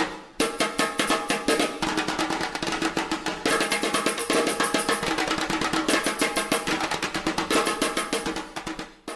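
Fast, drum-driven dance music with rapid, evenly spaced percussion hits. It fades out near the end.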